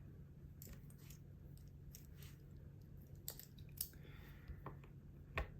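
A few faint, sharp clicks of small metal watchmaker's tools against a wristwatch movement as its gear train bridge is taken off, the loudest near the end, over a low steady hum.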